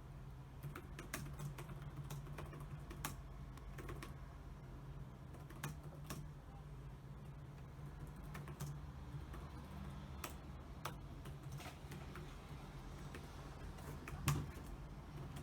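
Typing on a computer keyboard: irregular, unhurried keystroke clicks, with one louder key knock near the end.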